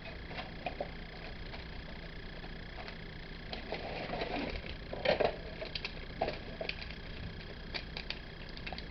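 Handling noise on a camcorder: scattered clicks, taps and small knocks, busiest around the middle and again near the end, over a faint steady electrical hum.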